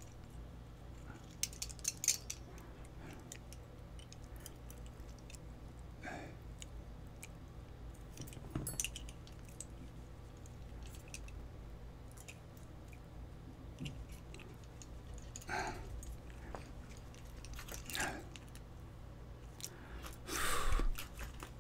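Small metal clicks and short rattles of a pin-tumbler lock cylinder being taken apart by hand, a follower pushed through as the plug is drawn out. A louder rattle near the end as the lock's pins are knocked out.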